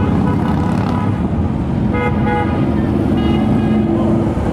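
Vehicle horns tooting over the steady rumble of motorcycle and street traffic, once about two seconds in and again in a longer blast from about three to four seconds in.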